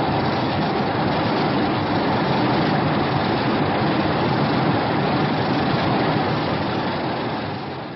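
A Heisei-era Godzilla sound effect: a loud, rough, steady rumble that starts suddenly, holds level for about eight seconds and fades out near the end.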